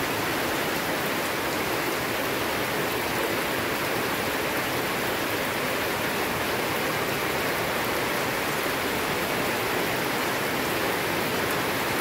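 Steady rain falling on garden foliage: an even, unbroken hiss.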